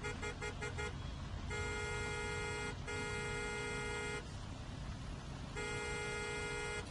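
A horn with one steady buzzing tone. A few quick beeps in the first second, then three long blasts of a second or so each, over a steady low background rumble.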